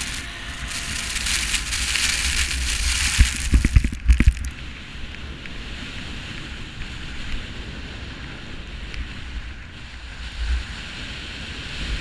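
Skis sliding over groomed snow at speed, with wind rumbling on the camera's microphone. A loud hiss fills the first four seconds, broken by several low thumps around four seconds in, then the sliding and wind noise settle to a steadier level.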